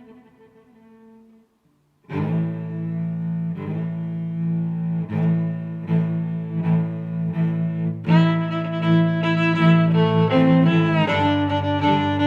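Background music with bowed strings: a passage fades out, a short gap follows, and a new passage starts about two seconds in and grows fuller about eight seconds in.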